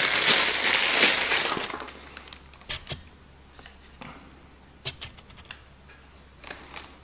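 Plastic bag crinkling as a Canon 55–200 mm zoom lens is pulled out of it, loud for about the first two seconds. After that come a few light clicks and taps as the bare lens and its caps are handled.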